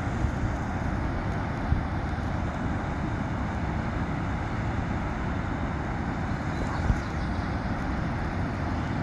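Steady roar of flood water being released through a dam's gates and rushing out below.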